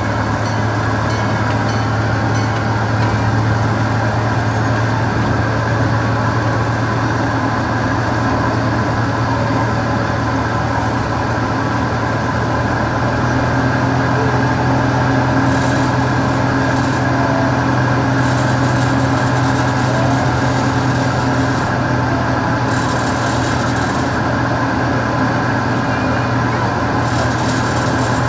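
Zoo miniature train running steadily, heard from its open passenger coach: a constant low engine drone with its rolling noise.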